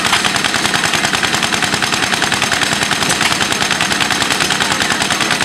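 Small antique air-cooled single-cylinder engine running, its exhaust popping in a rapid, even rhythm many times a second without skipping.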